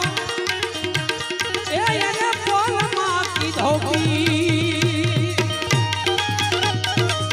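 Gujarati devotional bhajan music without singing: tabla playing a steady rhythm, its deep strokes sliding in pitch, under a melody line that wavers in pitch.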